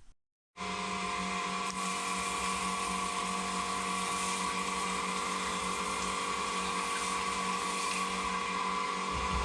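Hydroblasting (wet blasting) cabinet running steadily while it cleans Norton engine cases: a constant machine whine over the hiss of the blast spray. It starts abruptly about half a second in.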